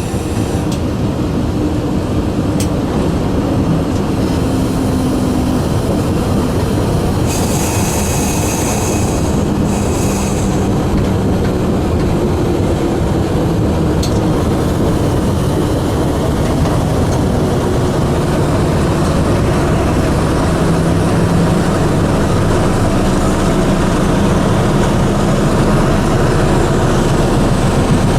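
Diesel locomotive running along the line, heard from the cab: a steady rumble with engine tones and rail noise. A few seconds of hiss come in about seven seconds in, and there are a couple of single clicks.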